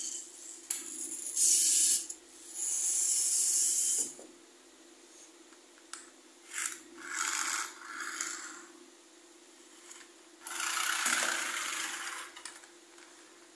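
Plastic toy trains handled and scraped over a paper sheet: four separate rasping, rustling bursts of a second or two each, over a faint steady hum.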